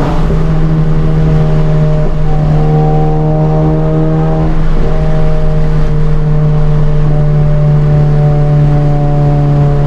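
Modified Mk7 Volkswagen GTI's turbocharged four-cylinder and aftermarket exhaust running at a steady, held engine speed: a loud, unchanging drone.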